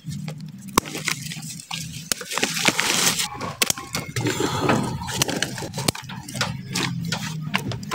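Steel bonsai scissors snipping leaves off a young bonsai's stem: many sharp, irregular clicks of the closing blades.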